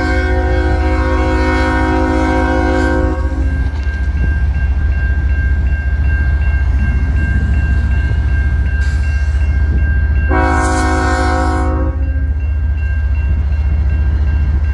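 Nathan K5HL five-chime air horn on a CN GE ES44AC locomotive blowing for a level crossing: a long blast that stops about 3 seconds in, a shorter blast around 10 seconds in, and another starting at the very end. Under it run the steady low rumble of the approaching diesel locomotives and the ringing of the crossing bell.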